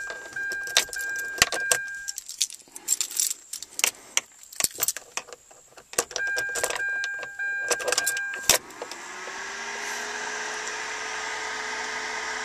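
Car keys jangling and clicking at the ignition while a car's electronic warning chime sounds in two stretches. About nine seconds in, an electric fan motor spins up and settles into a steady whir.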